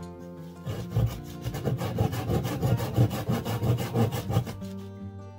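Hand saw cutting through a small block of wood in quick back-and-forth strokes, starting about a second in and stopping shortly before the end. Acoustic guitar music plays before and after the sawing.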